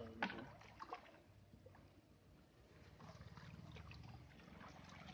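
Faint splashing of a hooked rohu carp in shallow water at the bank as it is being landed, with a few sharper splashes in the first second.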